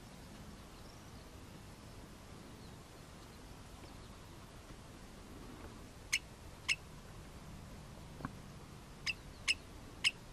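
Common redshank giving its alarm call: five short, sharp calls, a pair about six seconds in and a quick three near the end, over a quiet meadow hiss. It is the alarm a parent redshank gives to warn its hidden chicks.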